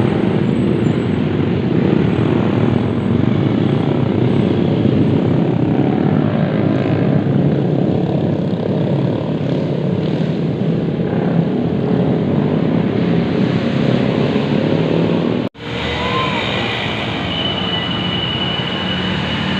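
A bus running loud and close, a steady heavy engine and road noise. About three-quarters of the way through the sound drops out for an instant at an edit, and the noise carries on with a faint high steady tone.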